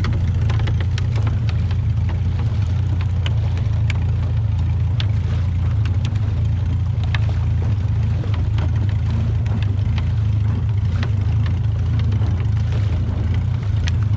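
Fishing boat's engine running steadily at low speed, a low even drone, with scattered light clicks and knocks over it as crab gill net is paid out over the side.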